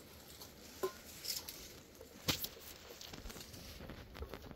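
A few scattered sharp clicks and knocks, the loudest about two seconds in, over a faint steady hiss.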